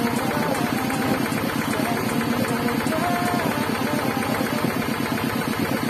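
Halved coconut scraped hard against the serrated blade of a kudkuran coconut-grater bench in rapid, even strokes, a steady rasping rhythm likened to a kuliglig hand tractor's engine.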